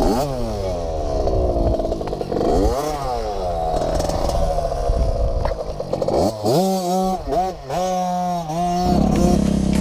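Several dirt bike engines idling and revving up and down. About six and a half seconds in, one engine climbs to high revs and holds there with a few quick dips. Near the end it drops back to a lower, steady running note.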